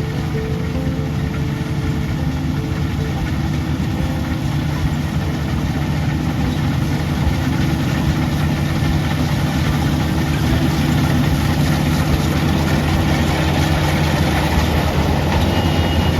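Paddy harvesting machine running steadily: a constant deep engine drone under a broad mechanical rushing noise.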